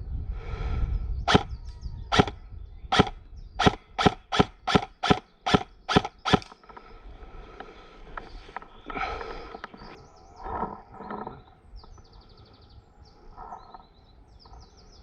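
Electric airsoft rifle fired in single shots, about a dozen sharp cracks: first nearly a second apart, then quickening to about three a second before stopping. Faint bird chirps follow.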